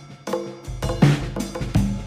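Background music with a steady drum beat and pitched instruments.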